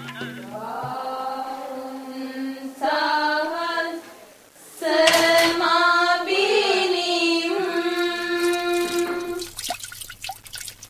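Commercial jingle music: a voice sings long held notes, the pitch wavering on the held notes, with a short break about four seconds in and the singing thinning out near the end.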